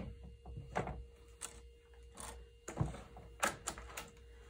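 Knitting machine carriage being fitted onto the end of the needle bed: a series of separate light clicks and knocks of the carriage seating on the rails, the loudest about three and a half seconds in.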